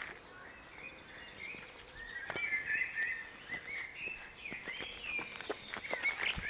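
Several songbirds singing, with quick chirping phrases from about a second and a half in. Footsteps on a dirt path grow more frequent in the second half.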